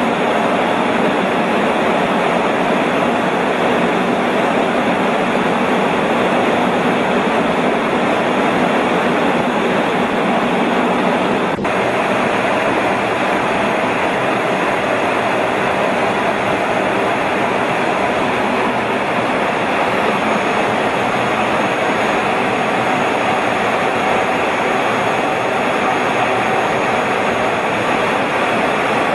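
Steady noise of a fighter jet's engines and rushing air heard inside the cockpit in flight, with a faint high whine from about two-thirds of the way in. There is a brief break in the sound a little before halfway.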